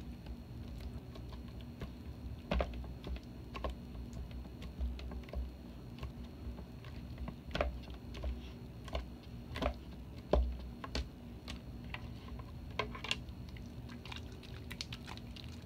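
Homemade glue-and-borax slime being squeezed and pulled apart by hand, giving irregular sticky clicks and crackles with soft low thuds. The slime is overactivated, stiff and tearing rather than stretching.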